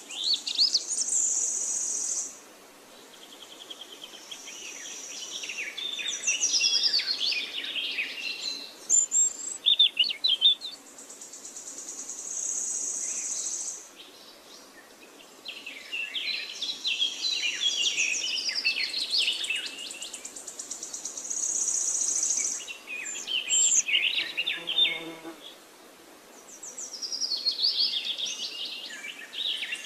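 Birds chirping and calling in repeated bursts, with a high steady buzz that comes and goes several times, each lasting a second or two.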